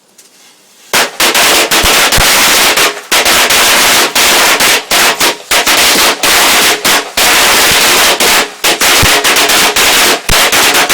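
A string of firecrackers going off inside an outhouse: rapid, crackling bangs for about ten seconds, starting about a second in, loud enough to overload the microphone.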